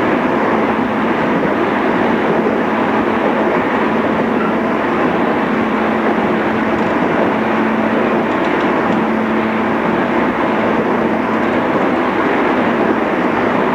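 JR East 211 series electric train running at speed, heard from inside the passenger car: a steady rumble of wheels and motors with a faint steady hum underneath.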